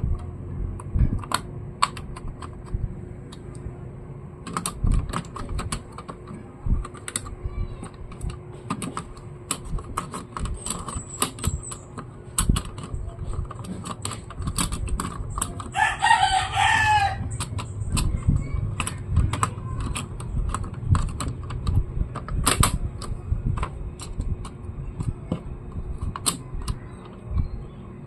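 Scattered clicks and taps of laptop parts being handled and fitted during reassembly. A rooster crows once in the background about halfway through.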